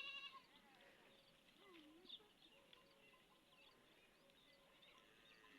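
Faint bleating of livestock: a wavering bleat trailing off at the very start and a softer low call about two seconds in, with faint bird chirps scattered throughout.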